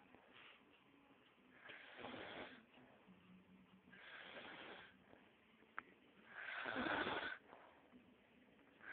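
A sleeper snoring: three breathy snores about two and a half seconds apart, the last the loudest.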